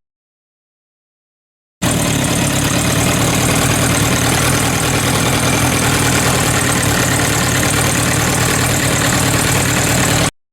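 Kawasaki GPZ Ninja-series inline-four engine idling with a clattering 'gacha-gacha' rattle, the sign of a slack cam chain that needs its stock tensioner adjusted. It starts about two seconds in and cuts off abruptly near the end.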